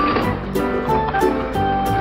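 Background music with held notes and a steady beat.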